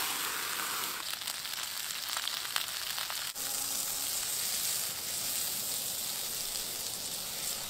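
Hot fat sizzling in a black steel frying pan over a campfire. At first salmon fillets sear with scattered crackles. After a break about three seconds in, a knob of butter melts and sizzles steadily in the empty pan.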